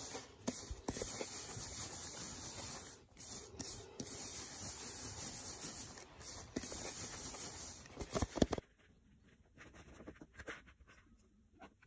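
Hand rubbing crumbly flour-and-milk helva dough through a perforated metal colander, a steady gritty rustling scrape. A few sharp knocks come about two-thirds of the way in, then it drops to faint scattered rustling.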